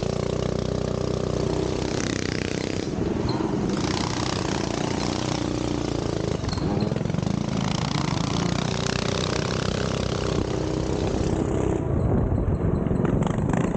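Minibike engine running under way on a dirt track, its pitch rising and falling as the throttle changes, over a steady rushing noise.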